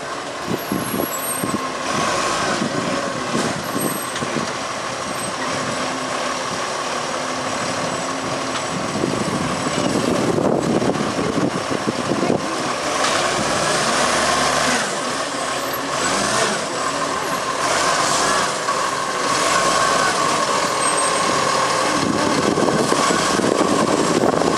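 Side-loading garbage truck's diesel engine running as the truck drives slowly up the street and pulls in to the kerb, with a steady whine that grows stronger in the second half and short hisses of its air brakes.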